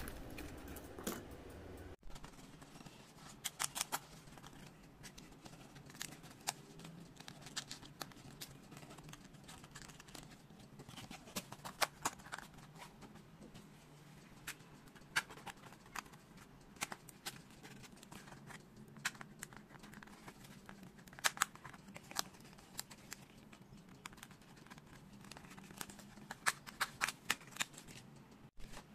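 Faint scattered clicks and crackles, in small clusters every few seconds, of foam-board 3D puzzle pieces being pressed out of their printed sheets and handled with fingers and metal tweezers.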